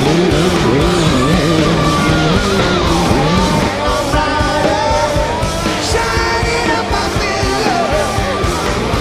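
Rock music with a singing voice over a steady drum beat.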